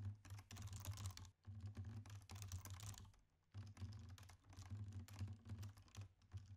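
Typing on a computer keyboard: quick runs of key clicks, broken by two short pauses.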